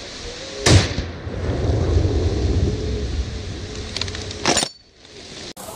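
Two sharp, loud cracks about four seconds apart, the first the loudest and followed by a low rumble: gunshots fired at a wild boar in the reeds.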